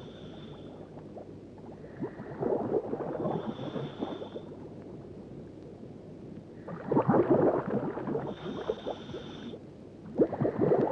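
Scuba diver breathing through a regulator underwater: three bursts of gurgling, bubbling exhaled air a few seconds apart, each with a thin hiss from the regulator.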